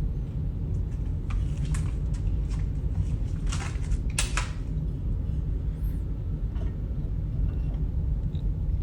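A steady low hum, with a few light clicks and knocks of handling scattered through the first half.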